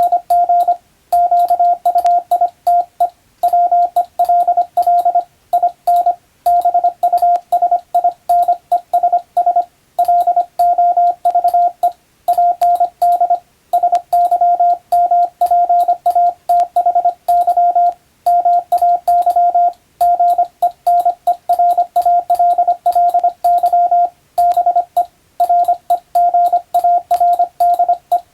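Morse code (CW) sent as a single steady beep of about 700 Hz, keyed rapidly on and off in fast dots and dashes, with short pauses between letter and word groups.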